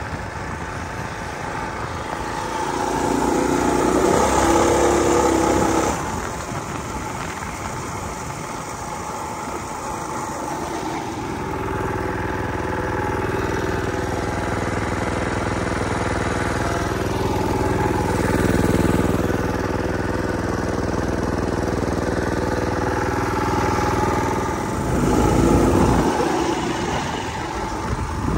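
Mini bike's small engine running through a bolt-on muffler, picking up revs twice, a few seconds in and near the end, and running steadily in between.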